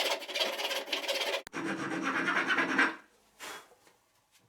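A steel screw's threads being worked back and forth in a hole in a wooden dowel, used as a file to enlarge a hole that was too tight: a steady rasping scrape. It changes tone about a second and a half in, stops about three seconds in, and one short scrape follows.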